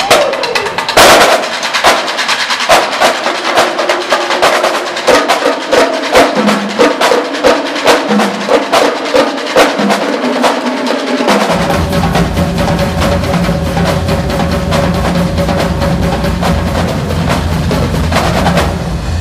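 A marching drumline of snare drums, tenor drums and bass drums plays a fast cadence of rapid, crisp strokes. Past the halfway point it moves into a sustained roll with a continuous low bass-drum rumble underneath, which cuts off just before the end.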